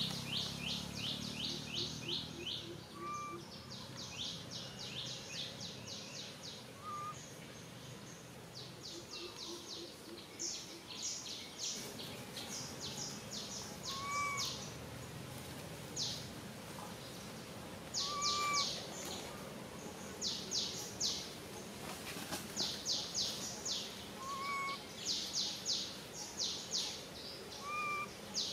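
Wild birds calling: repeated bursts of rapid, high-pitched chirps, each burst lasting about a second, with a short whistled note every few seconds.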